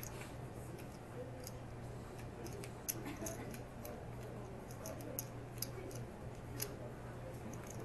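Poker chips clicking as players handle their chip stacks: irregular light clicks, the sharpest about three seconds in, over a steady low hum.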